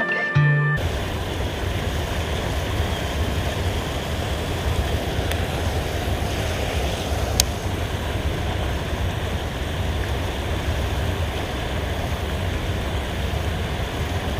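Steady rush of river water pouring over a concrete weir, the river running high after rain. A single sharp click about seven seconds in.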